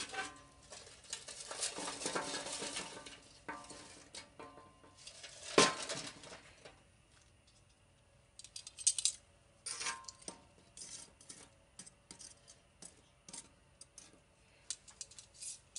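Steel tongs clacking and lit charcoal briquettes clinking as they are moved into a pile on a metal-topped table. The first half holds scraping and rattling with one loud clank about five and a half seconds in. The second half is a run of separate sharp clicks.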